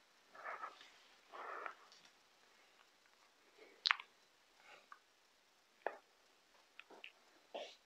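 Faint handling noise as a racing pigeon is held and turned over in the hands: two soft rustles in the first couple of seconds, then a few sharp clicks, the loudest about four seconds in.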